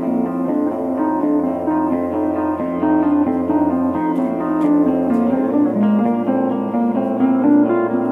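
Pedal steel guitar and electric guitar improvising together in dense, sustained chords. A low drone underneath drops out about four seconds in, and a higher bass note takes over shortly after.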